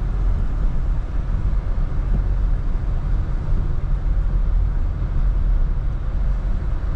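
Steady low rumble of road and tyre noise heard inside a moving car's cabin, driving on wet asphalt.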